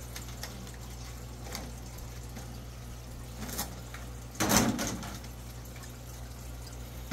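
Stiff clear plastic packaging handled as a toy truck is lifted out of it, with a few light clicks and one louder plastic rustle about four and a half seconds in that lasts about half a second.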